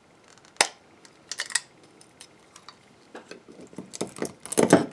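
PLA support material snapping and clicking as it is pried out of a 3D-printed part with needle-nose pliers: a sharp snap about half a second in, two more around a second and a half, then a quick run of louder snaps near the end.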